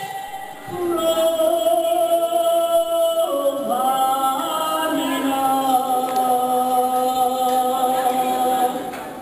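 A woman singing a Bulgarian song solo into a microphone with no accompaniment, in long held notes that step up in pitch a few seconds in.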